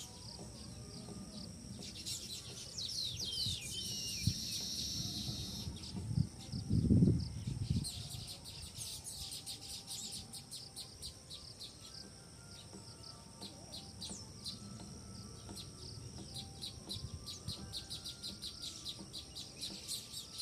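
Small birds chirping and calling, with many short high chirps and a few falling whistled notes about three seconds in, over a steady high hum. A brief low rumble about seven seconds in is the loudest sound.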